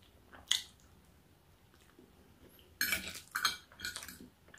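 Metal fork clinking and scraping against a ceramic dinner plate: one sharp click about half a second in, then a quick run of clinks and scrapes near the end.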